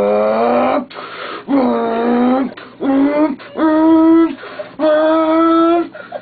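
A kid imitating car engine noises with his voice: a string of about five held vocal tones, each dipping and then rising in pitch, with short breaks between them.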